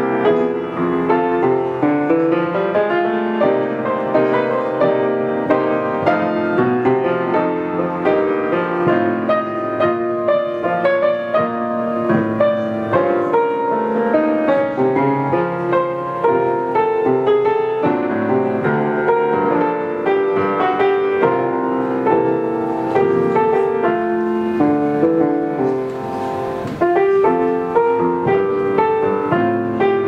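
Solo grand piano, a 19th-century Röder, playing a romantic piece: a continuous flow of melody and chords without pause.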